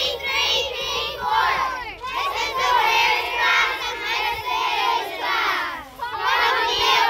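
A large group of children calling out together in unison, in long phrases broken by brief pauses about two and six seconds in.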